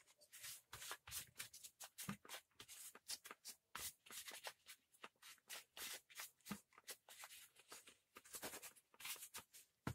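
Faint rubbing and scuffing of a cloth rag wiping down a petrol brushcutter's engine housing, in many short, irregular strokes.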